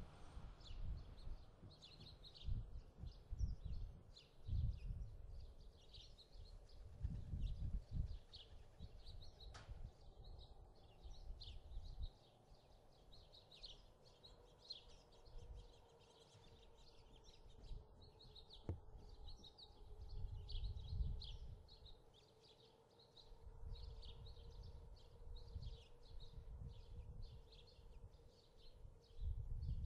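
Small birds chirping rapidly and continuously, over a low rumble that comes and goes.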